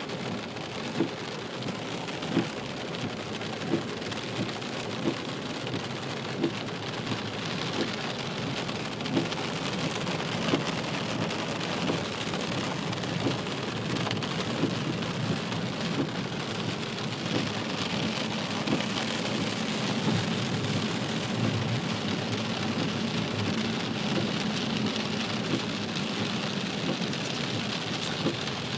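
Heavy rain falling steadily, with short sharp thumps recurring about every second and a half.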